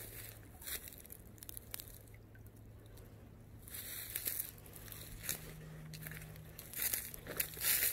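Footsteps crunching through dry leaf litter and twigs, irregular crackling steps with the loudest crunches about halfway through and near the end.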